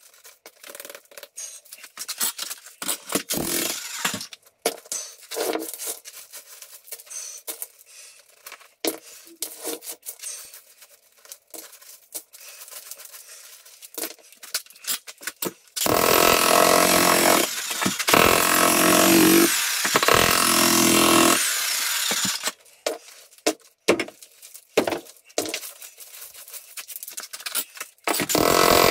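Broken chunks of concrete slab clinking and scraping as they are picked up and piled by hand. A bit past halfway a jackhammer breaks into the concrete floor slab for about six seconds, stops while the rubble is handled again, and starts up once more near the end.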